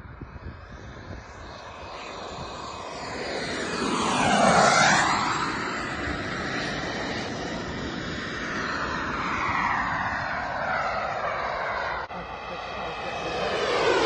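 Twin model turbine jet engines of a 1/6-scale Skymaster Su-30 RC jet running as it makes a pass. The sound sweeps down and back up, loudest about four to five seconds in, and then swells again near the end as the jet comes by once more.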